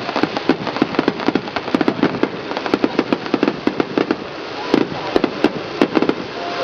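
Aerial fireworks bursting in quick succession: a dense run of sharp bangs and crackles, several a second.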